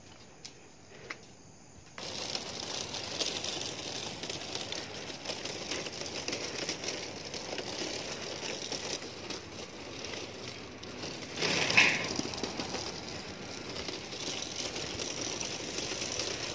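Rustling and tapping handling noise from a handheld phone and the steps of someone walking, over a steady outdoor hiss that comes in suddenly about two seconds in; a short louder rasp near the twelve-second mark.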